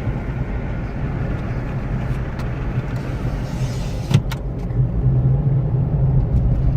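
2005 Suzuki Forenza with a badly worn wheel bearing, giving a steady low rumble. One sharp knock comes about four seconds in, followed by a few faint ticks.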